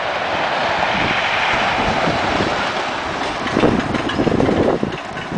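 Blue Streak wooden roller coaster train running over its wooden track: a steady rumble, with the clatter of wheels on the track growing louder from about three and a half seconds in.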